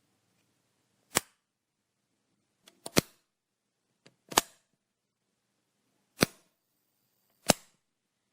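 Light switch being flipped: five sharp clicks at uneven spacing, one every one to two seconds, two of them led by a fainter click just before.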